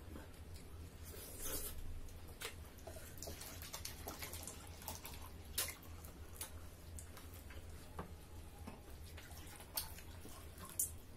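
People eating with their hands: chewing, with scattered short wet smacks and clicks from mouths and fingers, over a low steady hum.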